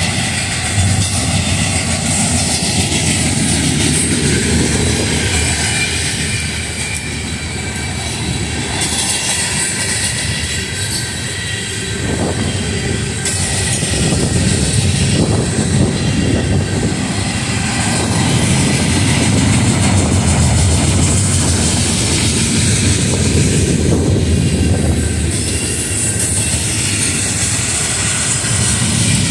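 Freight train cars (double-stack container cars, tank cars and boxcars) rolling past close by: a steady rumble and clatter of steel wheels on rail.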